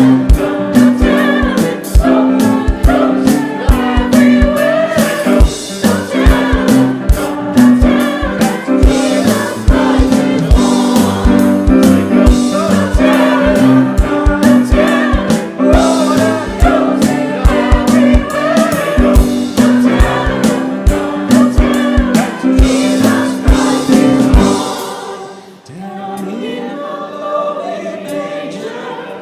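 Gospel choir singing an upbeat Christmas song over a band with a steady drum beat and bass line. About 25 seconds in, the drums and bass drop out and the music goes softer.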